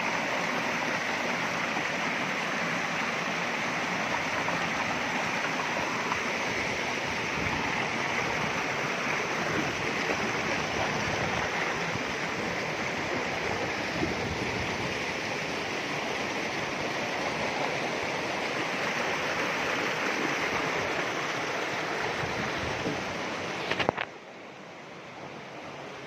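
Steady rush of flowing stream water. About 24 s in it cuts off abruptly after a couple of clicks, leaving a quieter hiss.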